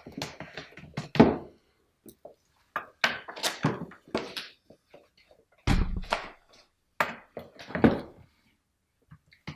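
Rustling and a few dull thumps in short bursts from a paper notebook being handled and its pages turned, with one heavier thump about six seconds in.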